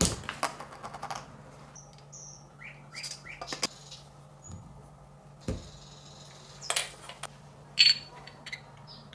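Scattered clicks, taps and light scrapes of small parts handled on a steel dapping block: a craft knife working a thin plastic tube, then a small metal tin lid set into one of the block's hollows, giving the sharpest click about eight seconds in. A low steady hum runs underneath.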